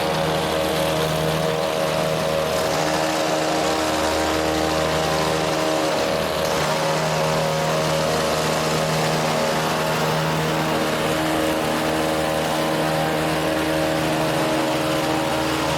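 Gas-powered hedge trimmer engine running steadily at high speed, its pitch dipping briefly about six seconds in before coming back up.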